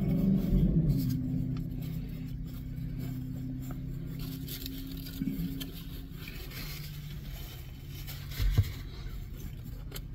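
Car-cabin sound: a low vehicle engine hum that fades over the first few seconds, then a quiet steady hum with small rustling and handling noises and one soft bump about eight and a half seconds in.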